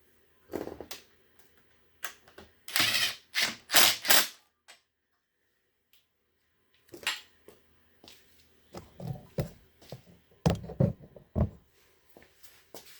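Irregular knocks, clicks and rattles of tools and parts being handled while a cleaned ground connection is refitted. The loudest run comes about three to four seconds in, with a second cluster of knocks near the end.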